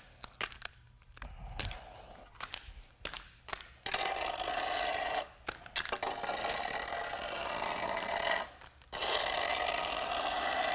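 Gauge rake dragged through freshly poured MMA resin slurry on the floor, scraping in long strokes from about four seconds in, with two short breaks. Before that, a few light knocks and clicks.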